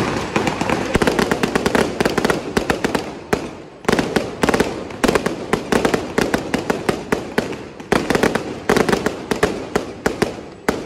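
Aerial fireworks going off in rapid succession: a dense crackle of many sharp pops, with a brief lull about three and a half seconds in and dying down near the end.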